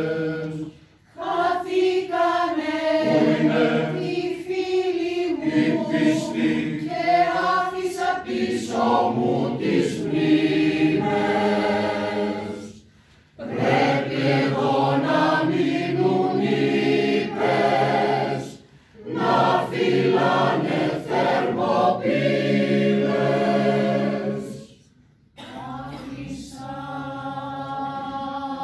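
Mixed choir of men's and women's voices singing unaccompanied, in phrases broken by brief pauses four times.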